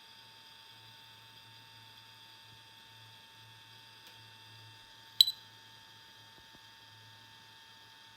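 Faint steady high-pitched electronic whine over a low hum that pulses on and off: the self-noise of a DJI Osmo with Zenmuse X5 camera picked up on its own recording, noise that makes it poor for filming. A sharp double click about five seconds in is the loudest sound.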